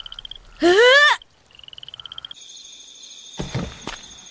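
Animated forest ambience: a high pulsing trill repeats in short phrases, cut across about half a second in by a loud, short rising call. About two seconds in, a steady high shrill drone takes over, with a few soft thuds near the end.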